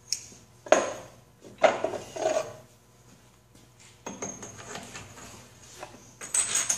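Steel lathe parts clinking and knocking as they are handled: a collet holding a bolt and the collet-chuck parts being set down and picked up, with three sharp ringing clinks in the first few seconds, lighter clatter later, and a cluster of knocks near the end as the collet is fitted into the lathe spindle nose.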